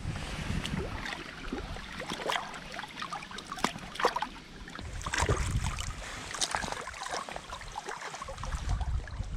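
Water splashing and lapping in short irregular bursts, with gusts of wind rumbling on the microphone now and then.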